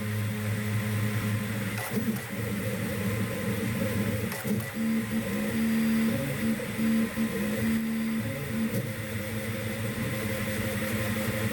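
CoreXY 3D printer's stepper motors whining as the machine moves, with steady tones that jump in pitch every second or so as the moves change.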